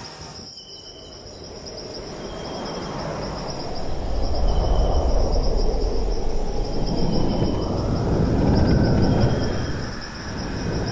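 Insects chirring in a steady, finely pulsing high buzz, with short high chirps repeating every second or two. Under it a rushing, wind-like noise swells up over the first few seconds, stays loud, and dips briefly near the end.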